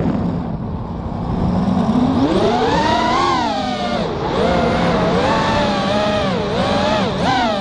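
Brushless motors of a 5-inch FPV racing quadcopter (EMAX RedBottom 2300kv with DAL 5040 three-blade props) whining, heard from its onboard camera. The pitch slides up and down with the throttle: it dips at the start, climbs to a high peak about three seconds in, drops, then wavers quickly near the end.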